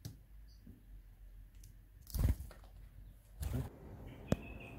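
A house sparrow's beak clicks on the table as it picks up a mealworm, followed by two short rustling bursts, the louder about two seconds in, a sharp click, and a faint high bird chirp near the end.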